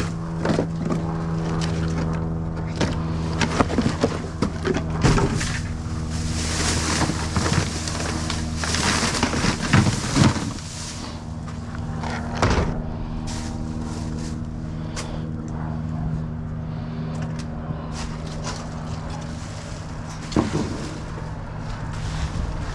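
A vehicle engine running steadily, its hum shifting slightly about halfway through, with scattered knocks and rustling handling noise.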